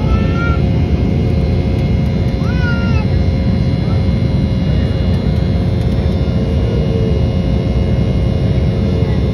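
Steady roar of an airliner cabin in flight, engine and airflow noise with a constant hum under it. Two brief high, gliding voice-like sounds stand out, one near the start and one about two and a half seconds in.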